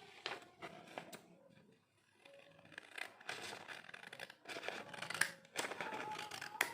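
Scissors cutting paper pictures: a run of short snips with paper rustling, pausing briefly about two seconds in and then carrying on.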